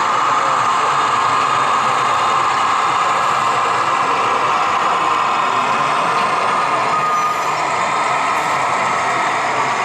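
Diesel engine sound from a sound-fitted OO gauge model Class 68 locomotive's decoder speaker, running steadily as it hauls tank wagons slowly.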